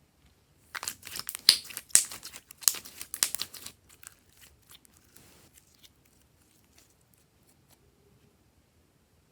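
Glossy slime being squeezed and stretched by hand, giving a quick run of sticky crackles and small pops for about three seconds, then fading to a few faint crackles.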